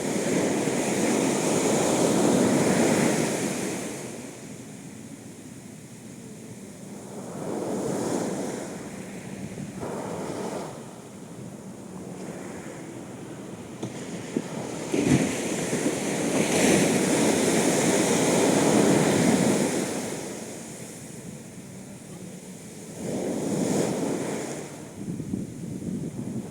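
Ocean waves breaking on the shore, the wash of surf swelling and fading in long surges every few seconds, loudest near the start and again through the middle.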